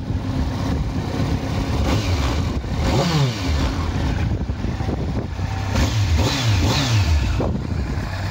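2010 Kawasaki ZX-10R's inline-four engine idling through an Akrapovic exhaust and blipped on the throttle: one rev about three seconds in, then a quick run of three or four revs near the end, each rising and falling back to idle.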